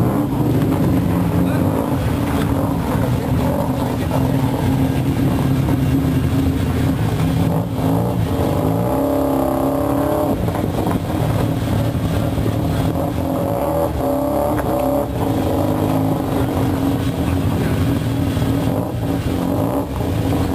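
Loud aftermarket exhausts of classic Japanese cars pulling away slowly one after another, among them a first-generation Mazda RX-7 with its rotary engine and a Datsun B110 Sunny coupe. One engine is revved up and back down about nine or ten seconds in.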